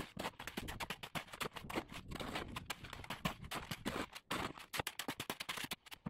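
Shovel scraping and chopping through gravelly Quikrete concrete mix in a wheelbarrow tub: a quick, irregular run of gritty scrapes and knocks as the mix is turned over.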